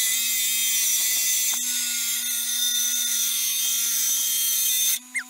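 Bench grinder running with a bolt held against the wheel, grinding off excess threads: a steady motor hum under a high hissing grind. The grind breaks briefly about a second and a half in and stops near the end.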